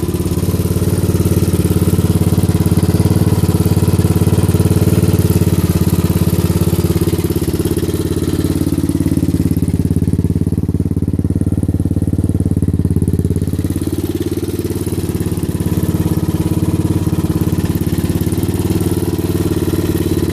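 1983 Honda XR350R's air-cooled single-cylinder four-stroke RFVC engine idling steadily.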